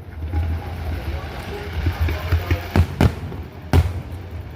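Fireworks going off: three sharp bangs between about three and four seconds in, over a steady low rumble.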